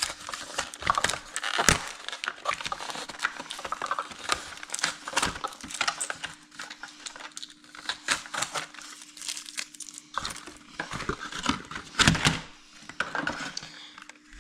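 Plastic and cardboard packaging crinkling, crackling and tearing as a handheld game is worked out of its box, with irregular rustles and a few louder snaps. A faint steady hum sits underneath.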